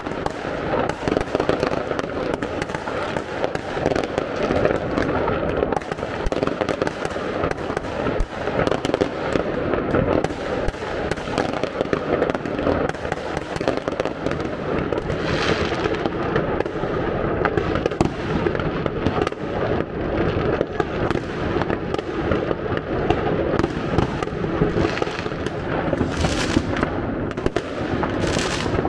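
Fireworks and firecrackers going off in a dense, unbroken barrage of overlapping bangs and crackles, with no pauses.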